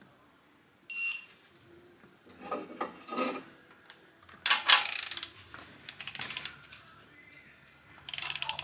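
Metal tools and parts being handled on a workbench. There is a short ringing clink about a second in, clattering, a loud scrape, then a quick run of ratchet-like clicks and another short rustle near the end.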